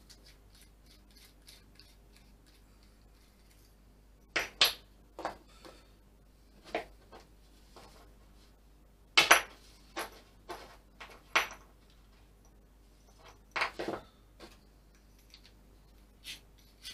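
Small tools and parts handled on a workbench while heat-shrink sleeving is fitted over freshly soldered wires: scattered clicks and light clatter at irregular intervals, a handful louder than the rest.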